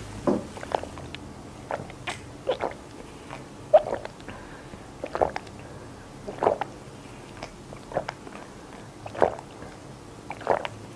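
A person gulping a drink from a plastic bottle, close to the microphone: a series of swallows, roughly one every second or so.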